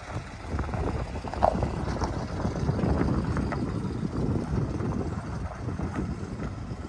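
Pickup truck engine running as the truck drives slowly past on a dirt lot, with a brief sharp sound about a second and a half in.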